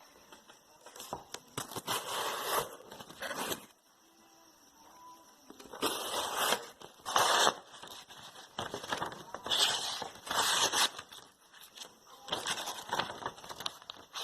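A series of cutting strokes through something firm, each a noisy stroke of about half a second to a second and a half, with short pauses between.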